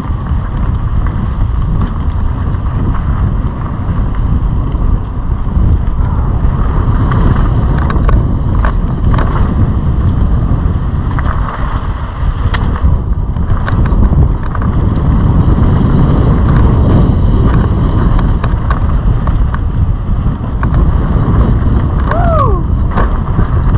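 Wind buffeting an action camera's microphone while riding a mountain bike down a dirt track, with the tyres rumbling over packed dirt and gravel and scattered knocks and clicks from the bike. A short falling tone sounds near the end.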